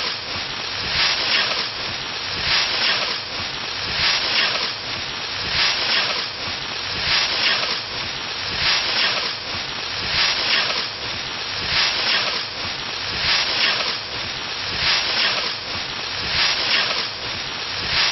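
A scythe swishing through standing wheat, stroke after stroke at a steady, even pace.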